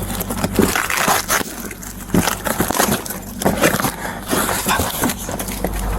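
Crinkling and rustling of taped-up packaging being handled, a fast irregular run of sharp crackles and knocks.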